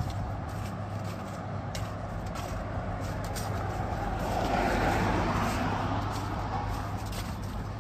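Street traffic: a steady low hum, with a vehicle passing and growing loudest about five seconds in.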